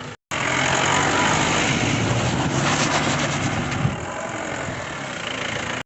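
Off-road jeep's engine running, with a dense rushing noise over it; the sound drops in level about four seconds in.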